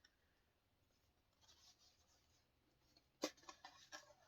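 Quiet handling of a cardboard subscription box being opened: a faint scraping rustle, then a sharp tap about three seconds in, followed by a few light clicks.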